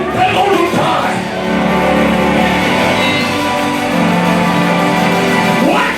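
Live church praise band playing, with guitar and held instrumental chords.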